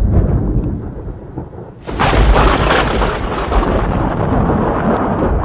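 A loud, deep rumble that starts suddenly, then swells about two seconds in into a louder crackling roar that keeps rolling, like a thunderclap or a blast.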